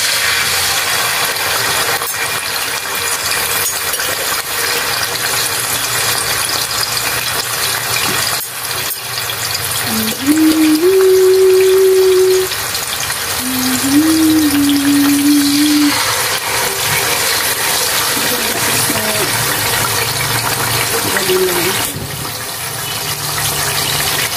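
Pork pieces deep-frying in very hot oil: a steady loud sizzle and crackle that starts as the meat goes in. A voice holds two long notes partway through, about ten and fourteen seconds in.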